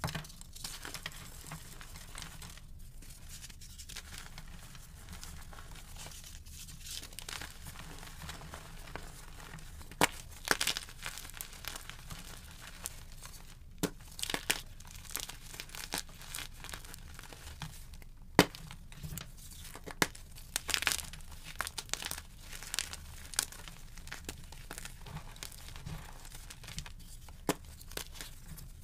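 Blocks of gym chalk (magnesium carbonate) being broken and crumbled by hand: continuous soft crunching and crumbling, with a few sharp snaps as pieces break apart.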